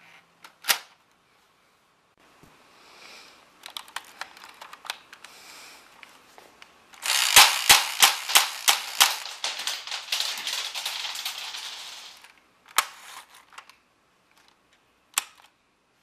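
Motorized Lego airsoft gun, powered by four XL motors through a gearbox, firing a burst of about five seconds: a dense run of rapid clicks over the whirr of the motors. A single sharp click comes near the start and a few separate clicks near the end.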